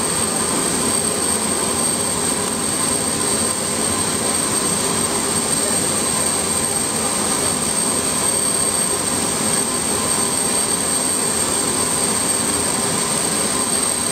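Aircraft turbine running steadily on the ground: a constant rush with a high, unchanging whine on top.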